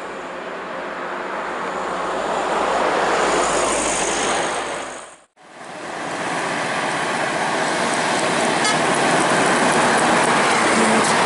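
Diesel coach buses and trucks passing on a highway. Engine and tyre noise swells as a coach comes closer over the first four seconds and cuts off sharply about five seconds in. It then returns as steady, loud traffic noise as a container truck and a coach pass close by.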